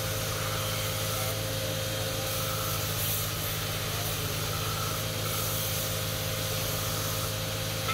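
Belt grinder running, its abrasive belt grinding a metal electric-iron base plate held against it: a steady motor hum under a dense hiss, swelling a little as the plate is pressed and moved.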